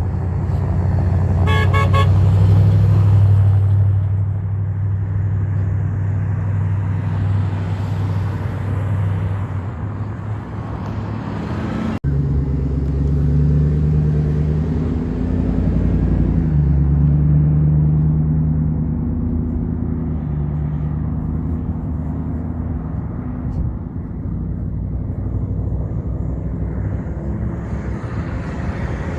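Heavy truck engines droning by, with one short horn blast about two seconds in. The drone breaks off suddenly about twelve seconds in and a second heavy engine drone follows, fading toward the end.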